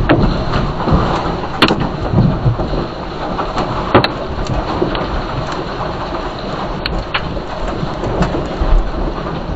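Earthquake-triggered rockfall: rock and debris crash down onto the road with a continuous heavy rumble and rattle. Sharp cracks of stones strike about one and a half, four and seven seconds in.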